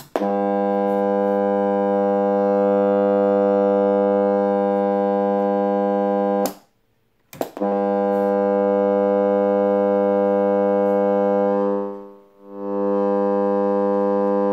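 ICOM IC-R7100 communications receiver buzzing with loud, steady mains hum as soon as it is switched on. The buzz cuts off abruptly about six and a half seconds in and comes back about a second later, then dies away briefly around twelve seconds in before returning. Such hum is normally caused by a dry-jointed mains smoothing capacitor in the power supply.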